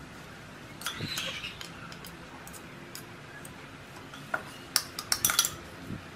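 A metal spoon clicking and scraping against a glass chopper bowl as minced pork is scooped out: a few light clicks about a second in, then a quicker run of sharper clicks near the end.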